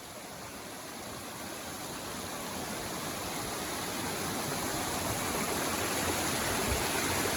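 Rushing water, a steady even noise that grows gradually louder.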